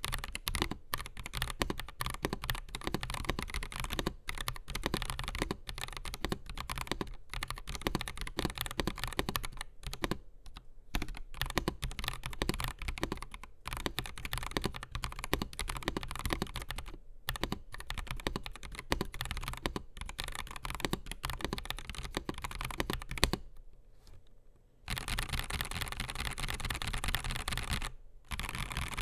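Typing on an AKKO 5075S mechanical keyboard with Akko CS Crystal linear switches, a polycarbonate plate and PBT Cherry-profile keycaps: a continuous patter of key strikes, with one loud strike about 23 seconds in and a short pause after it. For the last few seconds the separate clicks give way to a steady rushing noise.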